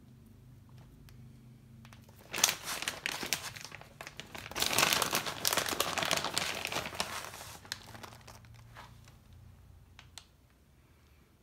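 Plastic bag of shredded cheese crinkling as it is handled and opened. The crinkling comes in loud bursts from about two and a half seconds in until about eight seconds, then fades to a faint rustle.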